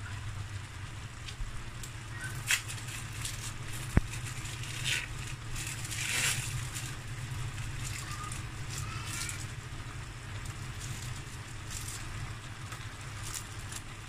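Cream sauce simmering in a pan, with scattered soft pops and crackles from the bubbling over a steady low hum. There is a sharp click about four seconds in.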